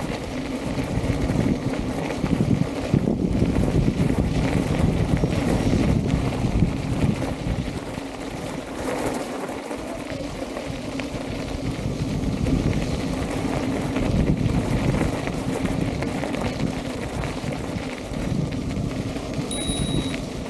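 Wind buffeting the microphone over the rolling rumble of an electric unicycle on a gravel path, with a steady low hum throughout. A brief high beep sounds near the end.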